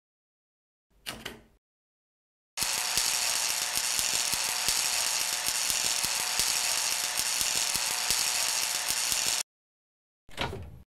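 Eye-laser sound effect as beams cut into a door: a steady crackling buzz that starts about two and a half seconds in and lasts about seven seconds, then cuts off. A brief short sound comes about a second in, and another near the end.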